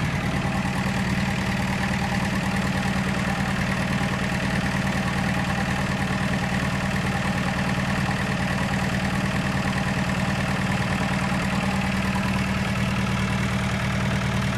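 A vehicle engine idling steadily at an even pitch.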